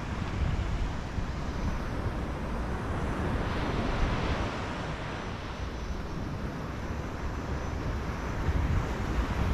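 Wind buffeting the microphone over a steady rush of ocean surf, the rush swelling briefly about four seconds in.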